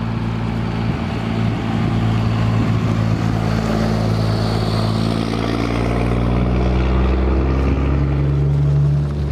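A motor vehicle's engine running steadily, its pitch drifting slightly and the sound growing gradually louder toward the end.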